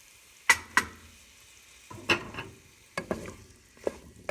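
Chopped tomato added to a hot pan of oil and spices and stirred in: two sharp knocks about half a second in, then a spoon knocking and scraping against the pan in short bursts over a faint sizzle.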